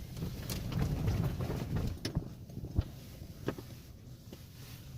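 Handling noise: a low rumble and rustle, loudest in the first two seconds, with a few sharp taps and knocks scattered through.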